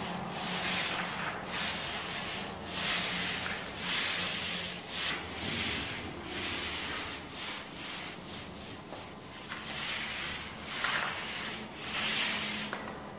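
Paint roller on an extension pole being worked over a wall, laying on the final finishing coat of plastic emulsion paint: a wet, rasping swish with each stroke, coming irregularly about once a second.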